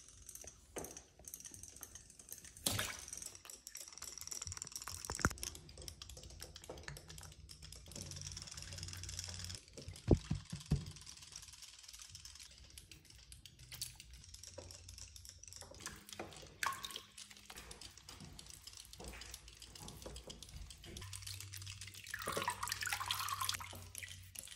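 Shallow bathwater in a tub splashing and trickling as a cat is washed with gloved hands, with scattered small knocks and clicks; the sharpest knock comes about ten seconds in.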